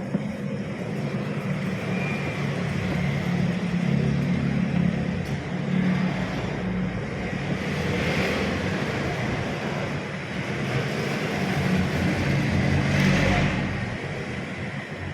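Panasonic washing machine's motor running and turning the tub after its burst capacitor has been replaced: a steady low hum, with swells about eight and thirteen seconds in.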